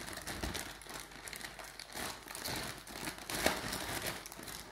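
Clear plastic bag crinkling and rustling as a bundle of wires is pushed into it by hand, with a sharper crackle about three and a half seconds in.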